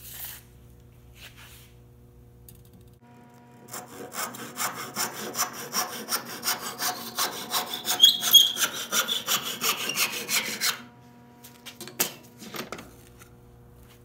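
Handsaw crosscutting a 3/4-inch pine board: quick back-and-forth strokes, about three a second, start a few seconds in and run for about seven seconds. A couple of sharp knocks follow near the end.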